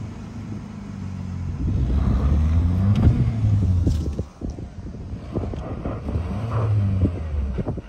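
Off-road vehicle engine revving hard under load on a sandy climb, surging twice with the pitch rising and falling, mixed with knocks and rattles from the vehicle.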